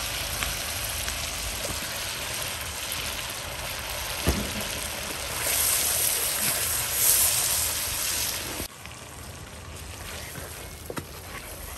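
Sugary barbecue sauce sizzling and bubbling in a wok over a wood fire while it is stirred with a wooden spoon, with one sharp knock a little over four seconds in. The sizzle swells louder past the middle, then drops suddenly quieter about three-quarters of the way through.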